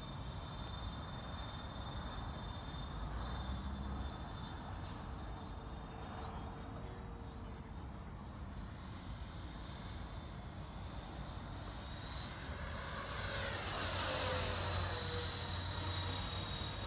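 Twin 80 mm electric ducted fans of a Freewing F-14 Tomcat RC jet whining in flight. The sound is distant at first, then grows louder about thirteen seconds in as the jet passes close, with the pitch falling as it goes by.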